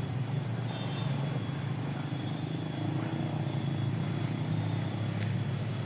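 A small boat engine running steadily with a low, even drone.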